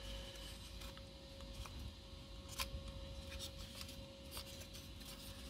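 Faint clicks and rubbing of thin wooden frame panels being handled, their friction-fit tabs pressed into slots, with one sharper click about halfway through.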